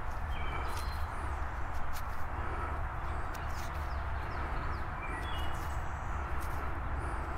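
Songbirds giving short, high chirps and whistles several times, over a steady low rumble. Light clicks of soil being crumbled and rubbed off a dug-up find in the hands.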